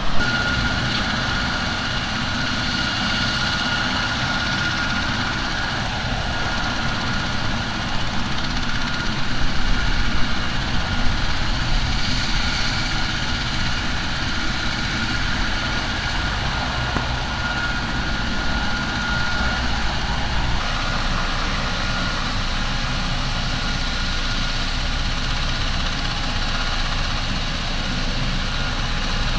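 Heavy engine running steadily, with a constant high whine over it.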